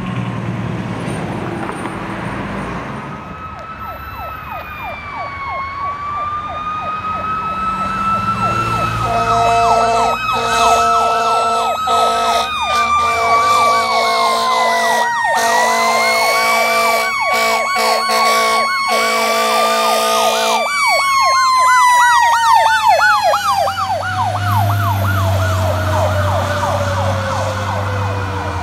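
Fire truck responding with its sirens on: a mechanical siren wails slowly up and down while an electronic siren yelps rapidly. Air horns sound steadily for about ten seconds in the middle. When the horns stop, the mechanical siren winds down in one long falling tone, with the truck's engine rumbling under it near the end.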